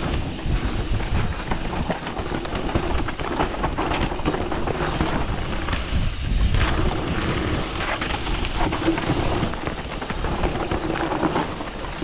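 Mountain bike ridden fast down a dry, dusty dirt trail: tyres rumbling over packed dirt and loose stones, the bike rattling over bumps, and wind buffeting the microphone.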